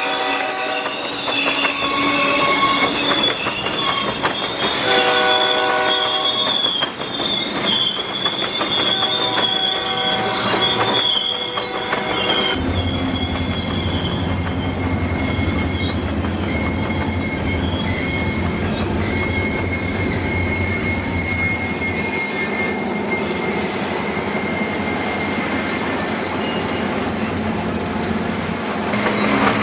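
Freight train passing: the locomotive horn sounds several blasts while a high wheel squeal runs along. About twelve seconds in, a deep rumble of the train rolling by takes over, with a thinner wheel squeal from the covered hopper cars on and off.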